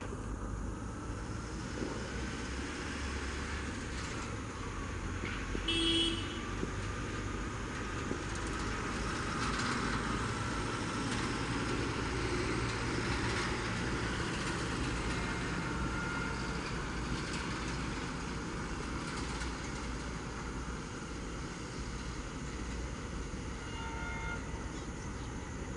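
Distant diesel locomotive approaching, its engine a steady low rumble, with one short horn toot about six seconds in.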